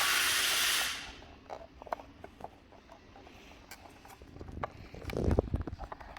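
A heat gun blowing with a steady hiss, cutting off about a second in. After it, light clicks and knocks of plastic parts being handled as the LED indicator is fitted into the mirror housing, louder near the end.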